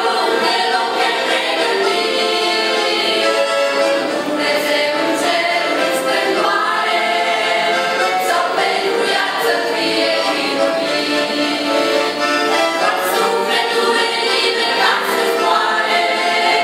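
Mixed choir singing a Romanian Christian hymn live in many-voiced harmony, with an accordion playing along.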